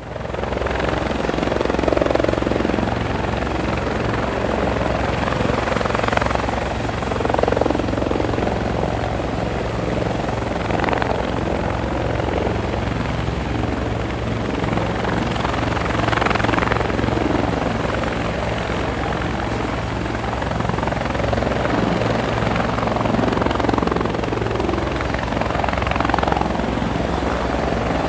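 Helicopter running, its rotor making a fast, steady beat with a thin, steady high whine over it.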